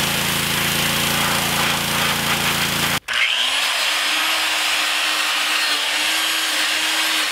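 A pressure washer's spray hitting a painted steel mixer yoke, over the washer's steady motor hum. After an abrupt cut about three seconds in, an angle grinder spins up and grinds steadily along the cast yoke, cleaning off the casting parting lines.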